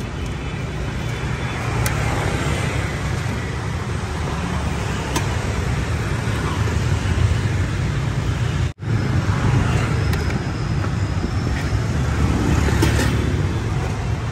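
Steady street traffic noise, the low hum of passing motor vehicles, with a very brief cut in the sound about nine seconds in.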